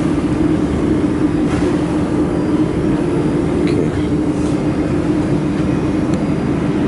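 Dust collection fan of a laser welding machine running steadily, a constant blower rumble with a hum over it.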